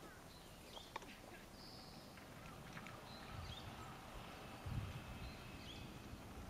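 Quiet open-air ambience with faint bird chirps scattered throughout, a light click about a second in, and a few soft low rumbles around the middle.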